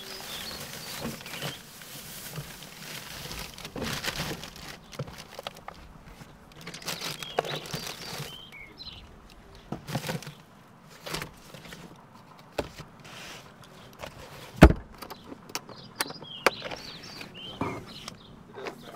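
Rustling of plastic food packaging and scattered knocks and clicks as bacon and eggs are taken out of an ICECO portable fridge-freezer and its lid is handled, with one sharp clack about three-quarters of the way through.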